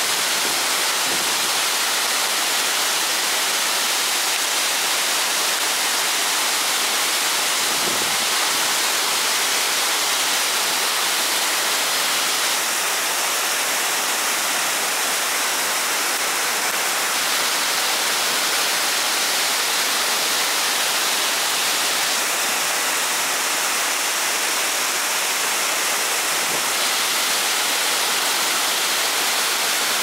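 Tall waterfall with an 88 m drop pouring in heavy flow: a steady, dense rush of falling water.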